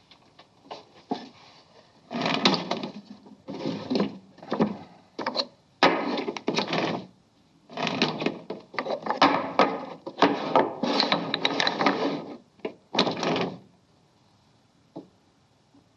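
Wooden toy blocks clattering and knocking as they are taken out of a drawer and set down on a tabletop. They come in a series of clacking bursts that stop about two seconds before the end.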